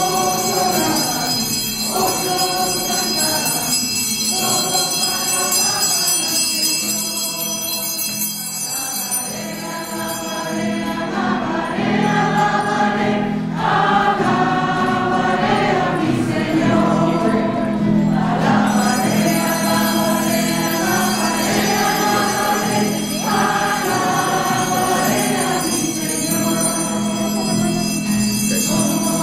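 A choir singing a hymn over a steady sustained accompaniment.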